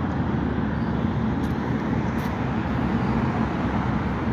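Steady low rumble of heavy vehicle engines, unchanging in level.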